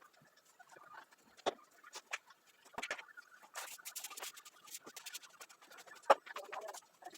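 Household objects being picked up and put away by hand: irregular clicks, knocks and clatter, with a sharp knock about a second and a half in and the loudest about six seconds in.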